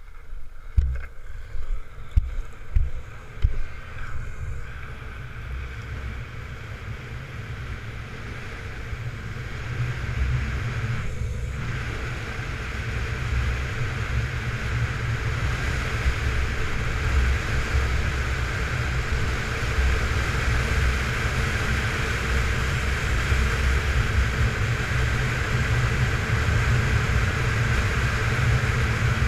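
Wind rush on the action camera's microphone over the hiss of grooved urethane longboard wheels rolling on wet asphalt, a steady deep rumble that grows louder as the board picks up speed on a fast downhill run. A few sharp knocks in the first few seconds.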